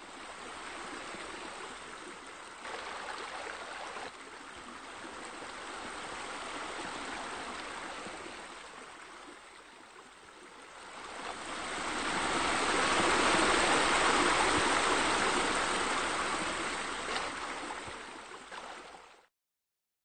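Small rock waterfall: water splashing and gurgling steadily over stones. It swells louder about halfway through, then cuts off suddenly just before the end.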